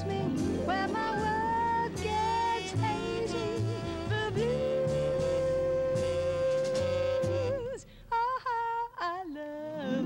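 A woman singing an up-tempo pop show tune with band accompaniment, holding one long note in the middle. Near the end the accompaniment drops away for about two seconds, leaving her voice alone in short phrases.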